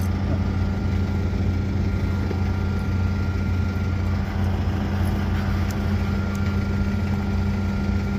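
An engine idling steadily: a constant low hum with several fixed tones above it.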